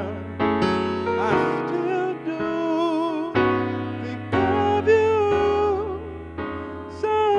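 A man singing long held notes with vibrato over piano-sound chords played on an electronic keyboard, a new chord struck about once a second in a slow ballad.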